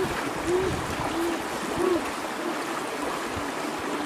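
Shallow stream water trickling, with a series of short low hoots repeating about every half second and growing fainter.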